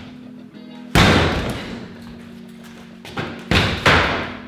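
Demolition of a wooden soffit panel: a heavy thud about a second in, then three quick knocks of wood near the end, over steady background music.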